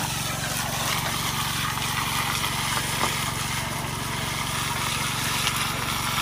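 A small engine running steadily as it drives a water pump, with the hiss of a high-pressure water jet blasting into a bank of gravel and soil.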